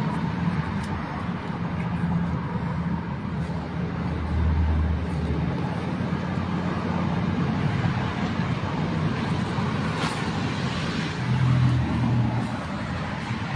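Street traffic: steady road noise from passing cars, with a low engine hum swelling about four seconds in and again near the end.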